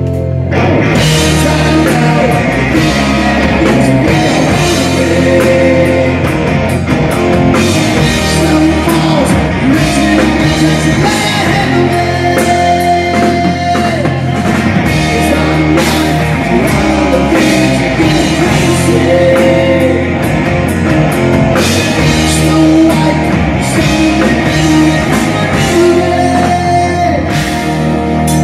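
Live rock band playing amplified: two electric guitars, electric bass and a drum kit. The full band with cymbals comes in about half a second in and plays on steadily.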